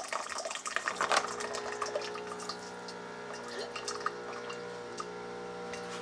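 Nespresso Vertuo Plus coffee machine running its cleaning cycle: a steady pump hum with water running through starts about a second in. A few light clicks of aluminium capsules being handled come near the start.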